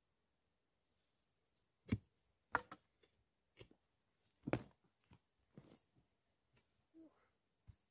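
A series of sharp, irregular knocks and thuds, about ten in all, the loudest about two seconds and four and a half seconds in, over a faint steady high-pitched hum.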